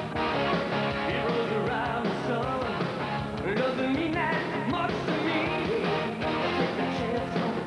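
Rock song with a singing voice and a steady band backing.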